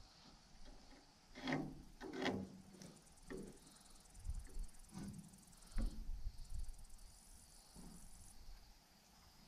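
Faint scattered knocks and scrapes of hand work, about one a second, over a steady high insect buzz, with low wind rumble on the microphone in the middle.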